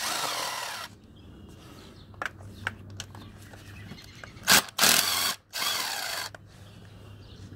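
Ratchet wrench loosening engine bolts in three short runs of about a second each, one at the start and two back to back after the middle, with a few light tool clicks between.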